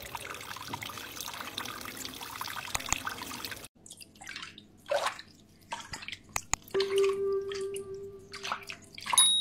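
Water running and splashing in a sink as a kitten is bathed, first a steady pour, then scattered splashes and drips about four seconds in. A short, high ding sounds near the end.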